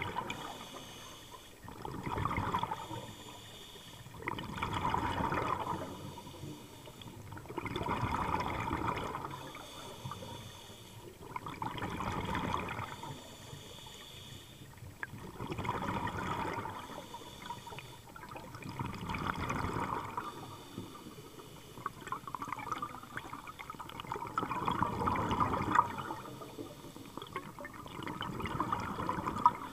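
Scuba diver's regulator breathing heard underwater: a rush of exhaled bubbles every three to four seconds, about eight breaths in all, with a fainter hiss of inhalation between them.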